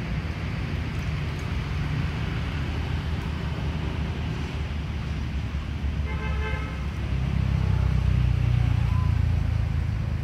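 Low, steady rumble of road traffic that swells louder between about seven and nine seconds in as a vehicle passes, with a short horn toot about six seconds in.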